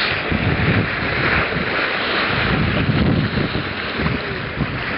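Wind buffeting the microphone over the rushing, splashing water of a moving boat's bow wave, in uneven gusts.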